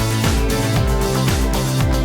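Upbeat electronic background music with a steady beat and sliding bass notes.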